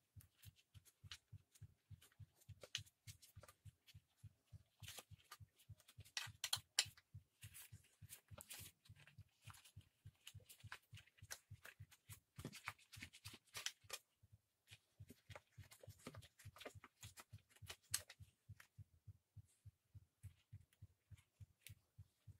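Near silence: scattered soft clicks and rustles of a screwdriver and gloved hands working the screws of a petrol brush cutter's plastic fuel tank, over a faint low ticking about four times a second.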